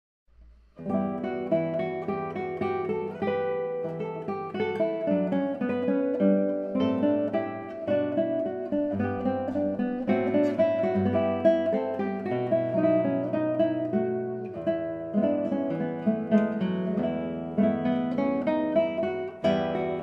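Acoustic guitar music with plucked notes, starting about a second in.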